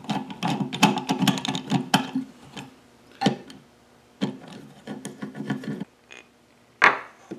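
Screwdriver turning out the long through-bolt that holds the wooden rear handle of a Stanley bench plane: runs of rapid clicking as the bolt turns, with a single sharp knock near the end as the handle and bolt come free.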